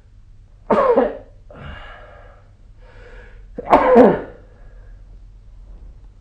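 A sleeping person snoring: two loud, sudden snores about three seconds apart, with quieter breaths between them.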